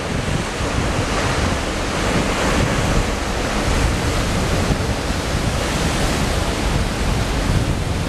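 Big ocean waves breaking against rocks and surf rushing over the boulders, a loud continuous wash of water noise, with wind gusting across the microphone.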